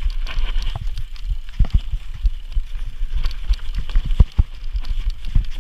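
Mountain bike descending a rough dirt singletrack: irregular knocks and rattles from the frame, chain and suspension over bumps, several a second, over a steady low rumble.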